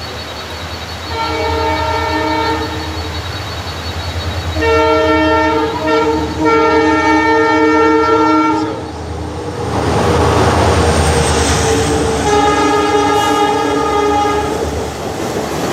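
WDP4D diesel locomotive sounding its multi-tone chime horn in four long blasts, the second and third almost run together, over the steady low drone of its diesel engine. From about ten seconds in, the loud rush and clatter of the train passing close joins the horn.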